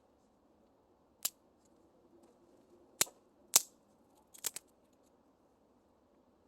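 Five sharp cracks at uneven intervals: one about a second in, two close together around three seconds in, the loudest of these the second, then a quick double crack near four and a half seconds.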